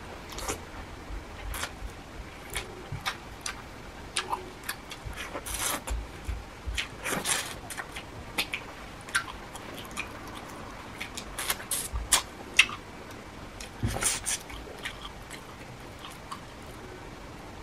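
Close-mouthed chewing and wet lip smacks of a person eating shrimp and rice by hand: irregular short clicks, with clusters of louder smacks around a third of the way in and again past the middle, thinning out near the end.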